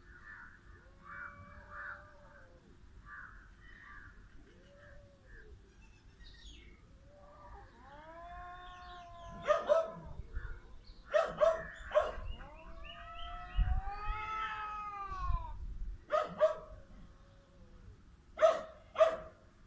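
Two domestic cats yowling at each other in a territorial standoff before a fight: low, drawn-out moaning yowls at first, building about eight seconds in to loud, wavering caterwauls. These are broken by several short, sharp outbursts.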